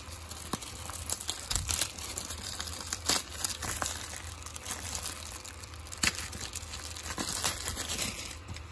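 Plastic shrink-wrap being torn and peeled off a 4K Blu-ray case by hand, a continuous crinkling with sharp crackles and snaps here and there.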